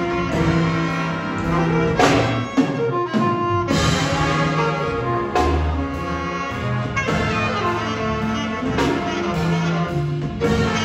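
Jazz big band playing live: a horn section of saxophones, trumpets and trombones with piano and vibraphone over a low bass line.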